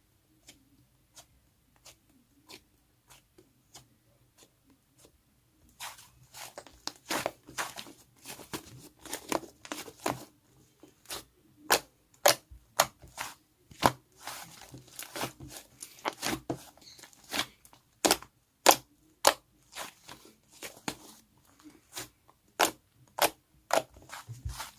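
Melon-bread slime being squeezed and stretched by hand, giving sharp clicks and pops. A few faint clicks come first, then from about six seconds in the popping turns quick, loud and dense.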